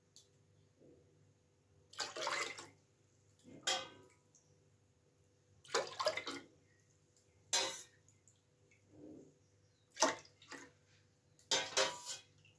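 A stainless-steel ladle scooping milk from a steel saucepan and pouring it back in, splashing about every two seconds, with the odd clink of ladle on pan.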